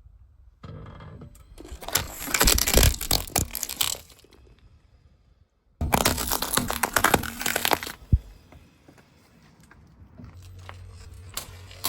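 Brittle, crunchy objects cracking and crunching under a car tyre, in two loud runs of dense cracks with a pause between and a single sharp snap after the second.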